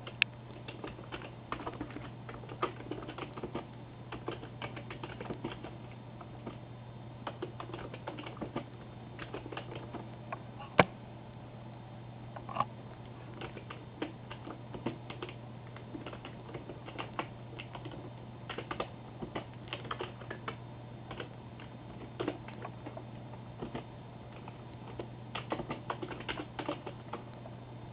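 Typing on a computer keyboard: irregular quick key clicks in runs, with one louder clack about eleven seconds in, over a steady low hum.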